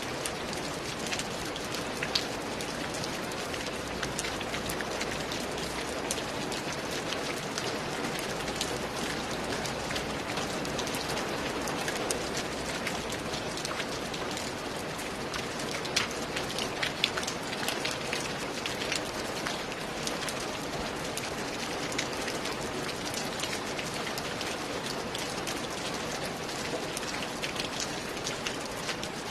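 Steady rain falling, an even hiss dotted with many sharp individual drop hits, a couple of them louder about two seconds in and again about seventeen seconds in.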